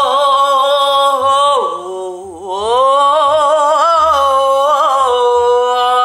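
A woman's voice singing a long, held, wailing note with a wavering vibrato. The note dips lower about two seconds in, then climbs back and is held again.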